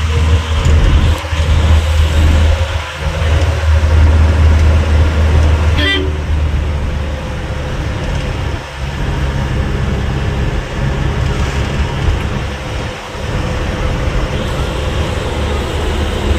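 Moving car, engine and road noise heard from inside, with a heavy low rumble that is loudest over the first few seconds. A short vehicle horn toot sounds about six seconds in.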